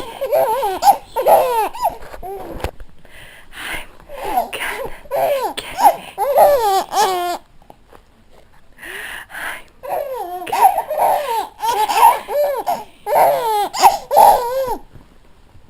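A baby laughing in high-pitched bouts of giggles, with two short pauses, about three and eight seconds in.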